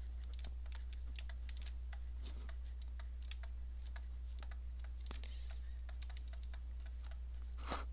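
Pen stylus tapping and scraping on a tablet while handwriting, heard as a scatter of light, irregular clicks over a steady low hum.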